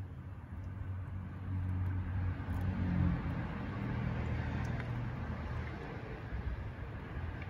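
A motor vehicle's engine running steadily with a low hum that grows louder about one and a half seconds in.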